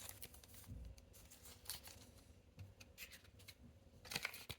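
Faint handling noises of small packaging and parts being put back into a box: scattered light clicks and rustles, with a denser cluster near the end.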